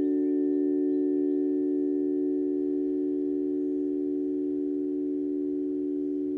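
A chord of several steady, pure tones held together: the harmony of planetary tones for the Venus, Mars and Jupiter square. It fades slowly.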